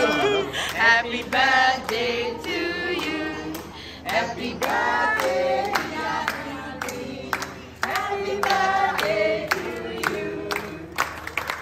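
A group of people singing a birthday song together, with hand claps keeping time.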